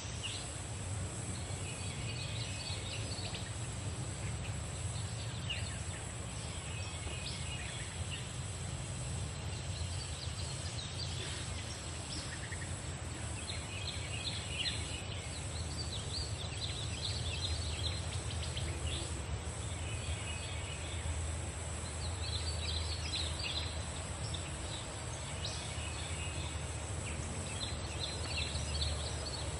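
Birds chirping in short, repeated bursts over a steady low rumble and a constant high-pitched whine.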